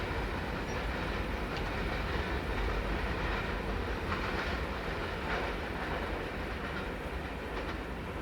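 Canadian Pacific freight train's cars rolling past with a steady rumble and a few clacks of the wheels over rail joints, easing slightly near the end.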